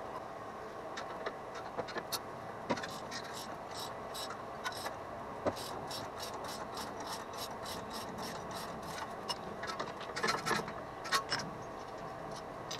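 Socket ratchet clicking in short runs as the 18 mm nut is backed off the bolt clamping the strut to the hub, with metal rubbing and a few louder scrapes and knocks near the end as the bolt is worked out.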